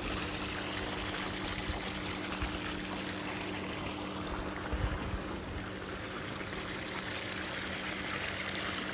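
Water running and trickling steadily in a plunge pool, with a faint low steady hum underneath.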